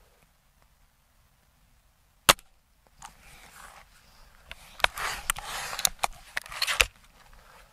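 Gamo Swarm Magnum Gen 3i break-barrel air rifle firing once, a single sharp crack about two seconds in. The barrel is then broken open and cocked, a few seconds of rustling handling with several sharp clicks and clacks.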